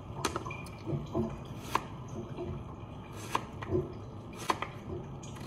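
A kitchen knife cutting a cucumber on a cutting board: four sharp taps about a second and a half apart, with a few softer knocks between them.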